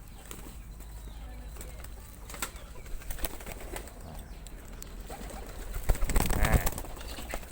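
Domestic pigeons flapping their wings, with some cooing and scattered small clicks; a louder flurry of wingbeats comes about six seconds in.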